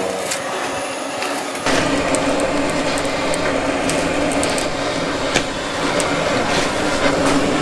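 Steady hiss of a handheld butane torch flame on oak firewood. About a second and a half in it jumps louder into a steady mechanical hum with a low drone.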